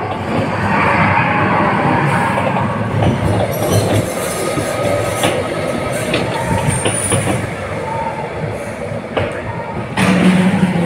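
Amusement-park ride train running on its track through a tunnel, its wheels rumbling with scattered clicks and a brief high squeal about seven seconds in. A louder low hum comes in near the end.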